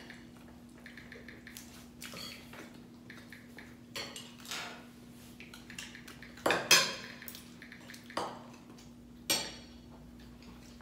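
Spoons and forks clinking and scraping against plates as people eat. The clinks come scattered, the loudest about two-thirds of the way in, over a faint steady hum.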